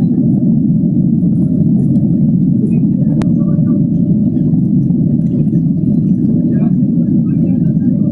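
Steady, loud rumble of a passenger airliner heard from inside the cabin, with a single sharp click about three seconds in.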